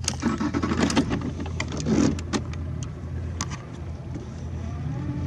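Boat motor running steadily with a low hum, and several sharp knocks and rattles in the first couple of seconds.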